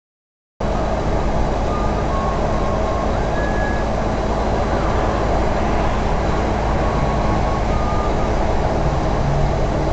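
Steady engine drone and road noise inside a semi truck's cab at highway speed, as picked up by a dashcam. It cuts in abruptly about half a second in.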